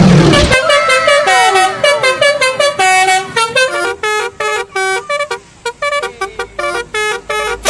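Basuri-style telolet bus horn playing a tune: several falling swoops, then a quick run of short, stepped notes. Loud music cuts off about half a second in, just before the horn starts.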